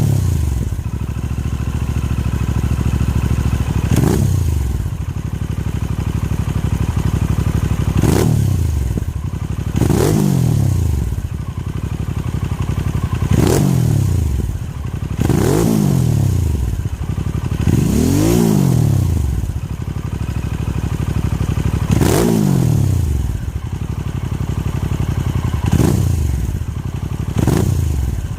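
Harley-Davidson Sportster S's Revolution Max 1250T V-twin idling and being blipped on the throttle about nine times, every two to four seconds. Each rev climbs quickly and then falls back to idle; the one about two-thirds through goes highest and lasts longest.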